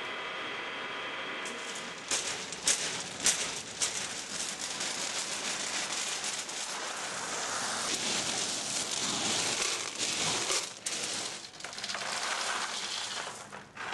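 Berlingot-making machine running steadily for about two seconds, then a dense clatter and rattle of many hard boiled sweets (berlingots) being scooped and poured, with a few sharp clicks as it starts.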